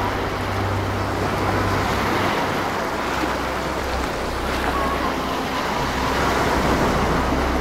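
Ocean surf breaking and washing up a sandy beach: a steady rush of noise over a low rumble.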